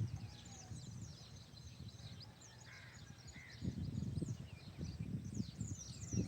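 Wild birds calling: many small birds chirping in quick, high, falling notes, with a couple of short, harsher calls about halfway through. Under them runs an irregular low rumbling noise that grows louder about two-thirds of the way in.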